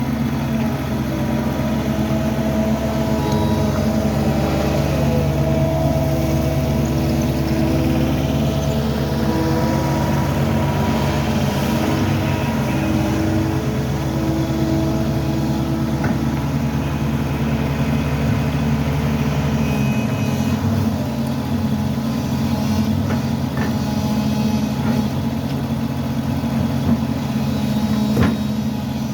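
A motor engine running steadily. About twenty seconds in its deepest hum drops away while it keeps running.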